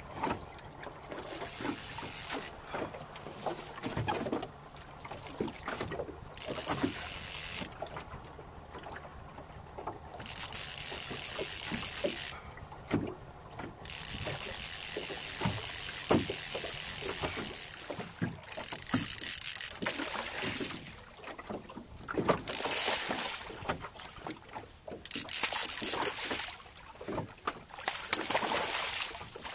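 Fly reel's clicker drag buzzing in about eight high-pitched bursts, each one to four seconds long, as a hooked fish pulls line off the reel. There are short knocks between the bursts.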